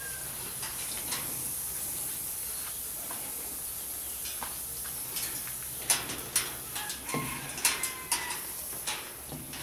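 Blue-and-gold macaw making a string of short clucks and clicks in the second half, over a steady hiss.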